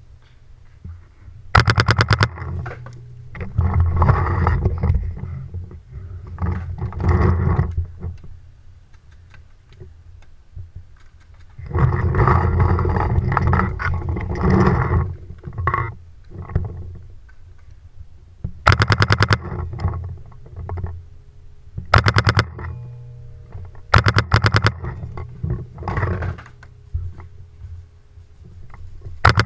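Paintball marker firing in rapid bursts: about five short strings of quick shots, with scuffling and rustling between them.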